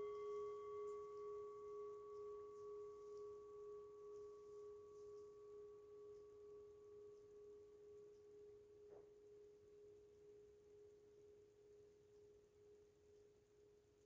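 Brass singing bowl ringing after a strike: one clear low tone with fainter higher overtones, wavering slowly in loudness as it fades. A faint tap comes about nine seconds in.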